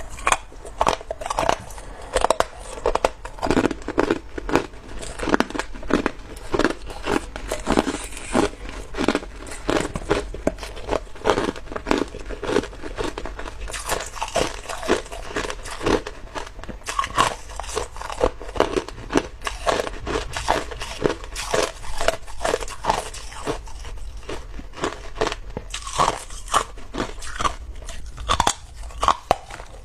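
Someone biting and chewing hard clear ice chunks close to the microphone: a dense run of sharp, irregular crunches, several a second.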